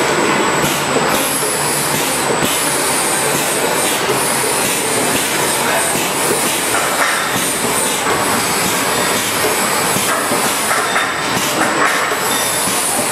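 Arepa production line machinery running: conveyor belts and the forming machine give a steady mechanical clatter and hiss, with high squeals several times.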